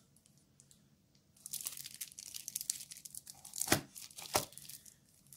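Plastic shrink wrap on decks of trading cards crinkling and rustling as the decks are handled, with two sharp clicks near the end.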